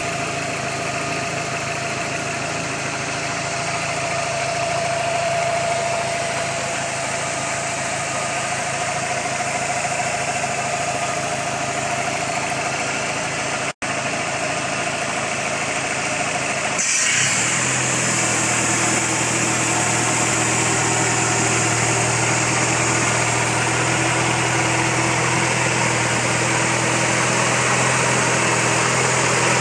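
Dodge SRT-4's turbocharged four-cylinder engine running at idle with a strange noise the owner is trying to troubleshoot. A thin steady whine sits over the engine at first; it cuts out for a moment about 14 seconds in, and about 17 seconds in the sound changes to more hiss and a deeper, stronger hum.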